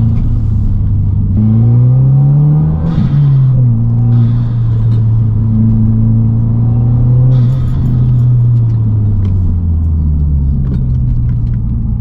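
Subaru WRX (VB) 2.4-litre turbocharged flat-four heard from inside the cabin under way: the engine climbs in pitch for about a second and a half, drops sharply at an upshift about three seconds in, then runs steadily and eases down in pitch near the end.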